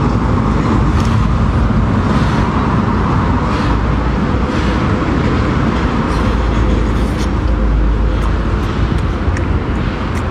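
Steady roadside traffic noise with a heavy low rumble, loud and unbroken, with a few faint sharp clicks in the second half.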